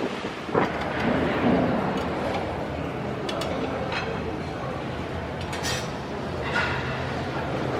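Indistinct background chatter over a steady low hum, with a few light clinks like dishes or glassware about three to six and a half seconds in.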